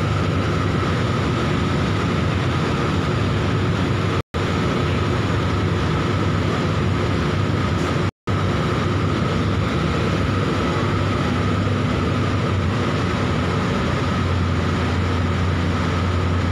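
Steady drone of the car ferry Joy Star's engines and machinery during berthing, heard on deck, with a constant whine over a low hum. The sound drops out abruptly twice for a moment, and the deeper hum grows louder near the end.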